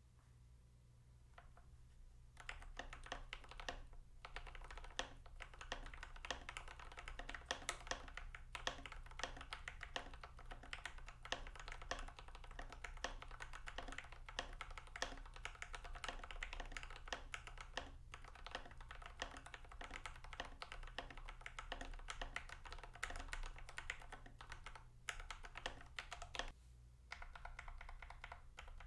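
Typing on an IQUNIX OG80 Wormhole mechanical keyboard with lubed TTC Gold Pink linear switches: a fast, steady run of soft key clacks. The typing starts about two seconds in and pauses briefly near the end.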